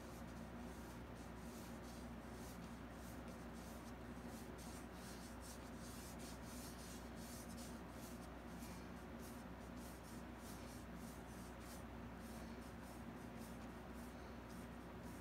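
Small paintbrush strokes on a canvas: many short, soft, scratchy dabs and strokes coming irregularly, a few to the second, over a steady low hum.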